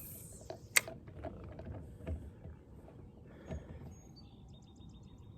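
Scattered light clicks and knocks of fishing tackle being handled in a kayak, with one sharper click a little under a second in and a short run of quick faint ticks near the end.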